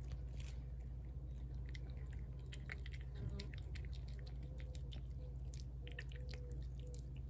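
Feral tabby cat eating wet cat food from a plate: a steady run of irregular, wet chewing clicks.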